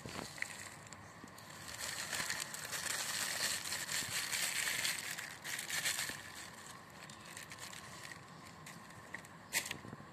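Granular NPK and KCl fertiliser pellets pouring from a plastic bag through a plastic funnel into a plastic soda bottle: a rushing, rattling hiss of pellets with crinkling of the bag, heaviest in the middle and trailing off after about six seconds. One sharp tap near the end.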